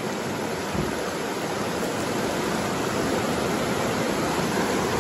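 Shallow river water rushing and rippling over rocks in a steady stream.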